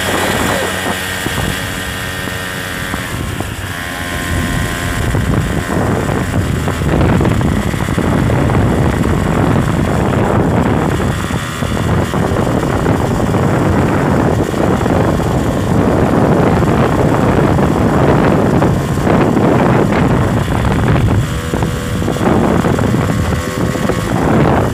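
A vehicle driving along a dirt track, its engine mixed with heavy wind noise on the microphone. It grows louder about five seconds in.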